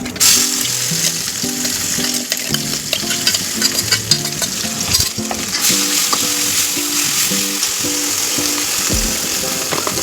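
Food frying in hot oil in a kadhai. A loud sizzle starts suddenly and then carries on steadily, with the small clicks of stirring running through it. Background music plays underneath.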